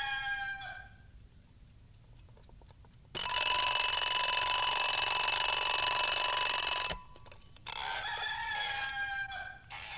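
The tail of a rooster's crow, then an alarm clock bell ringing steadily for about three and a half seconds and stopping abruptly, then another rooster crow near the end.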